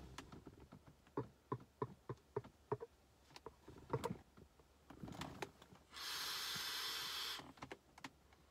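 Mouth popping softly about three times a second as vapor rings are puffed out, with the loudest pop about four seconds in. Then a long breathy hiss of vapor, about a second and a half, starting about six seconds in.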